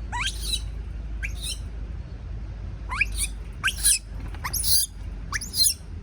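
Baby monkey screaming in short, shrill shrieks that each sweep sharply upward in pitch, about six of them, coming faster in the second half: the distress scream of a young monkey afraid at being left alone.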